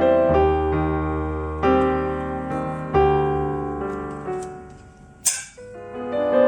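Background piano music, slow sustained notes with a new chord or note struck about every second and a half. A brief hiss-like noise cuts across it about five seconds in.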